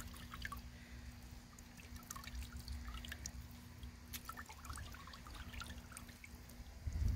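Horchata liquid trickling and dripping from a hand-squeezed cloth strainer bag into a plastic tub, as faint, irregular drips.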